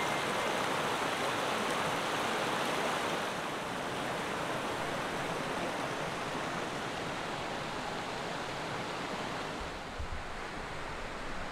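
Mountain creek rushing over boulders: a steady, dense hiss of running water that eases slightly after a few seconds.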